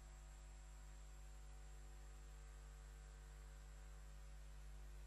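Near silence: a steady low hum with faint hiss.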